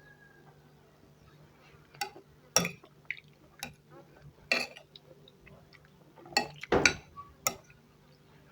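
Cutlery clinking against a plate during a meal: a series of separate short clinks, spaced irregularly about half a second to a second apart.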